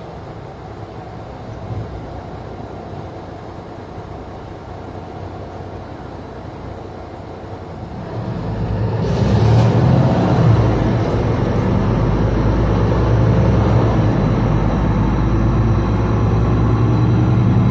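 Interior sound of a moving Mercedes-Benz Citaro C2 G articulated bus: steady engine and road noise. About eight seconds in it grows louder, with a stronger low engine drone, and there is a brief hiss around nine seconds.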